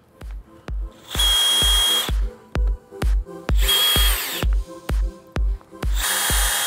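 DeWalt cordless drill/driver running in three short bursts of about a second each, a steady high motor whine, as it drives screws through the soft-top fabric flap into the bow.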